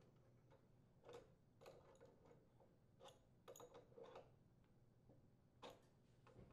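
Faint, scattered metallic clicks and ticks, a handful of them a second or so apart, from an adjustable wrench and the brass compression nut as the copper water supply line is threaded onto the refrigerator's water inlet valve and tightened.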